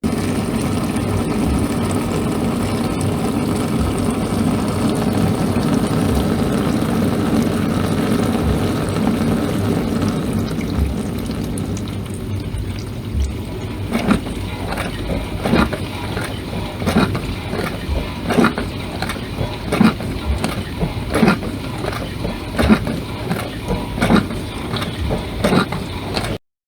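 Dishwasher running a wash cycle, with a steady rush of spraying water and a soft low thud about every second and a half. About halfway through the steady rush gives way to rhythmic splashes of water, the loudest about every second and a half with weaker ones between, until the sound cuts off just before the end.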